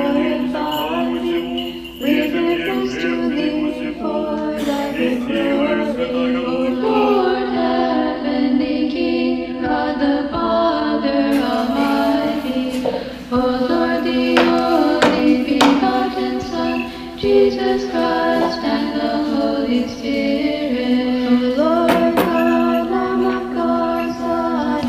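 Choir singing Orthodox liturgical chant a cappella, with a few sharp knocks in the middle.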